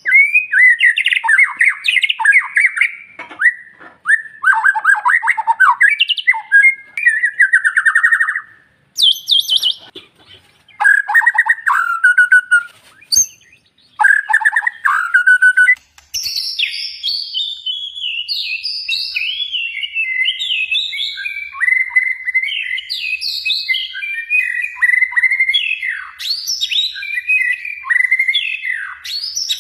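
White-rumped shama (murai batu) singing: loud, varied whistled and trilled phrases separated by short pauses, then from about halfway an unbroken run of quick, changing notes.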